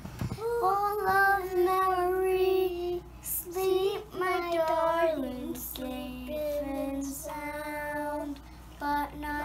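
A young child singing a slow song alone and unaccompanied, with long held notes that step lower in pitch.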